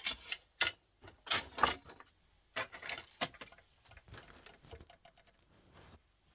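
Small metal parts clinking and rattling as they are handled, in an irregular run of short, sharp bursts. The bursts are loudest in the first two seconds, with fainter ticks and clicks about four to five seconds in.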